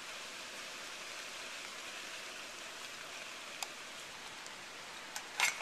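Steady rain falling, an even hiss, with a single light tick about three and a half seconds in.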